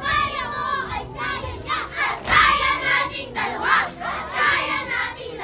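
A group of children shouting and singing together, several voices at once, over music.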